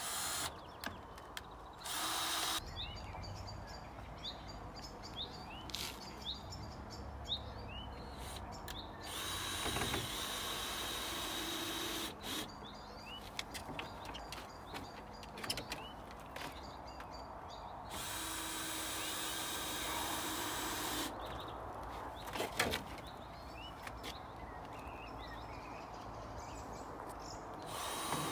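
Cordless drill-driver driving screws into featheredge cladding boards on a timber shed, running in several separate bursts, the longest about three seconds each, with short knocks between them. Birds chirp in the pauses.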